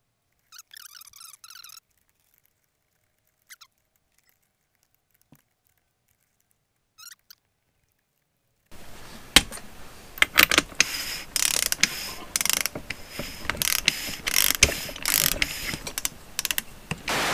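Near silence with a few faint clicks, then, from about nine seconds in, a busy run of sharp metallic clicks and clinks from hand work on the clutch side of a two-stroke motorcycle engine: metal clutch parts and hand tools.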